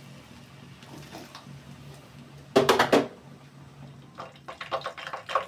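Food frying in deep hot oil, the oil foaming up and sizzling steadily, with sharper crackling toward the end. About two and a half seconds in comes a brief loud clatter, the loudest sound.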